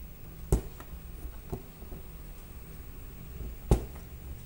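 A needle pushed through taut fabric to stitch beads on by hand: four short sharp clicks, the loudest near the end, over a low steady hum.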